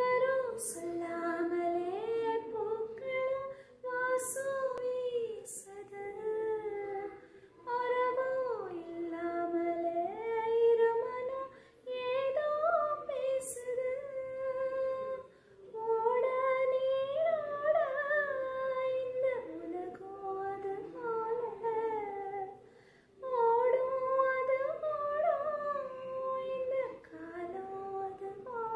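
A woman singing solo without accompaniment, holding long notes that slide up and down in pitch, in phrases of a few seconds separated by short pauses for breath.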